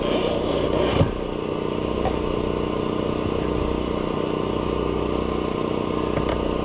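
Air compressor running steadily with an even motor hum. In the first second there is a short hiss of air, as a tire is inflated to seat its bead on the rim.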